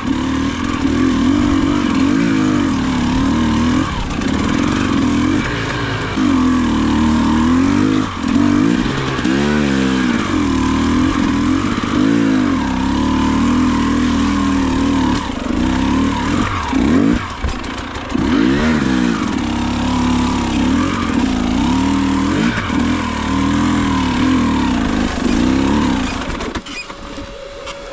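Enduro dirt bike engine under way on a trail, its pitch rising and falling with the throttle, with quick revs about a third and two thirds of the way through. It falls away near the end.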